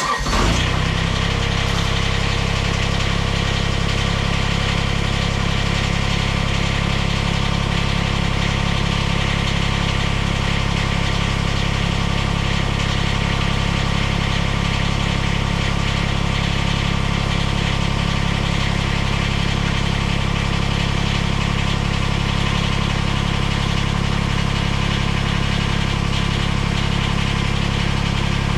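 Kubota BX compact tractor's three-cylinder diesel engine starting in the cold, firing up right at the start and then idling steadily.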